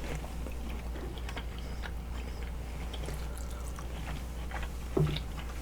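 Faint, close-miked chewing and mouth sounds of someone eating seafood, with scattered small clicks and a short low thump about five seconds in.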